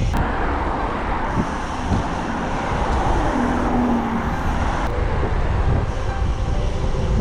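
Steady wind rush over the microphone mixed with the tyre and road noise of a road bicycle being ridden.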